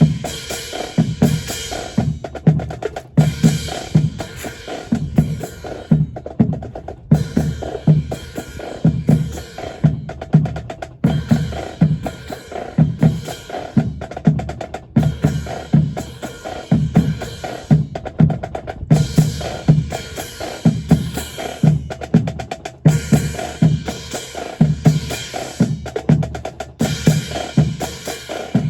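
Marching percussion of snare and bass drums playing a steady, repeating drum cadence with sharp rim strokes, pausing briefly every couple of seconds.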